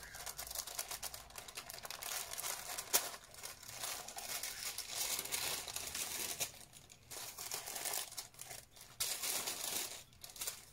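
Tissue paper wrapping rustling and crinkling as it is handled and folded back inside a cardboard gift box, in uneven bursts, with a sharp click about three seconds in.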